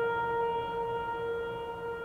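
Ambient background music: a single held note with overtones, slowly fading.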